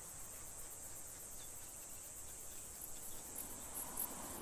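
Faint, steady, high-pitched insect chirring with a soft background hiss.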